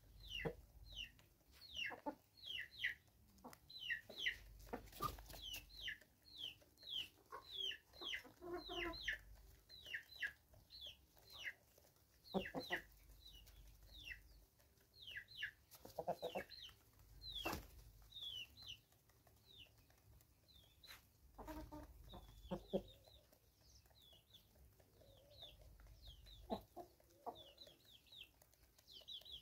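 Free-range chickens clucking softly now and then, over a steady run of short, high, falling chirps about twice a second.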